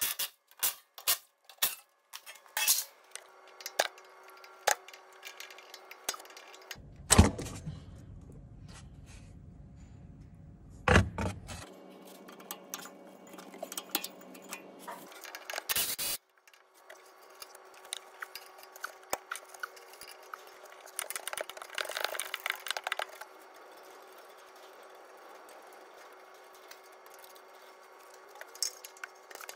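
Metal hand tools and fittings clicking and clinking against bolts and brackets under a car as the under tray and turbo actuator are unbolted, with a duller rumbling stretch in the middle, two loud knocks at about seven and eleven seconds in, and a quick run of dense clicks near the two-thirds mark.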